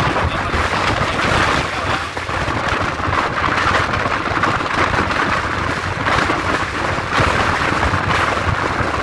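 Passenger train running along the track, heard from an open carriage window: a steady loud rumble and clatter of wheels on the rails, with air rushing past.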